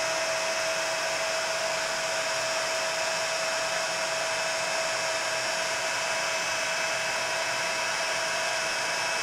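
Embossing heat gun running steadily, blowing hot air to melt a thick layer of embossing powder: an even hiss with a constant whine.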